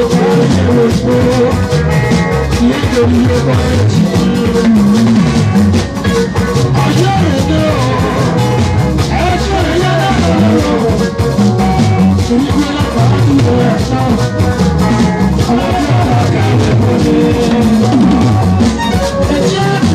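Live band playing upbeat dance music, led by a drum kit and an electric guitar, with a steady beat.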